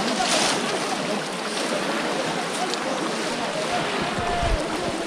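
Muddy water sloshing and splashing around a crowd of people wading through it, with a brief louder splash near the start.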